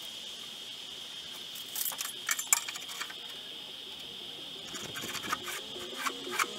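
Light metallic clicks and rattles of a tape measure being handled and its blade laid along a wooden board, in two short clusters.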